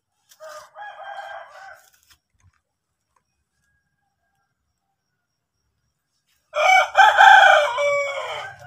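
A rooster crowing twice: a fainter crow about half a second in, then a loud crow about six and a half seconds in that trails down in pitch at its end.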